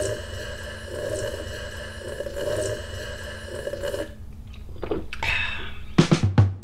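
A man gulping a drink from a mug in one long swallowing run for about four seconds. Guitar music starts with sharp strikes near the end.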